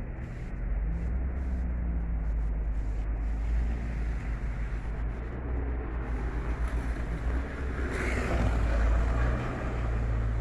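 Steady low rumble of a vehicle with road noise, with a louder rush of noise about eight seconds in.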